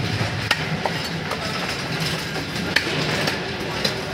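A large cleaver knocking sharply against a wooden log chopping block as fish is cut, a handful of irregularly spaced strikes. A steady low hum runs underneath.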